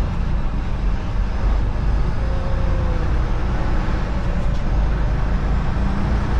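Engine and road noise of a truck driving on the highway: a steady, unbroken low rumble.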